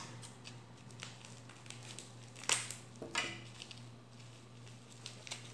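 Plastic bubble wrap crinkling and rustling as it is handled and pulled off a packaged rod, with one sharp crackle about halfway through.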